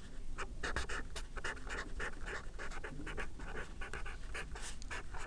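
Felt-tip marker squeaking and scratching on paper in many short, quick strokes as a word is handwritten.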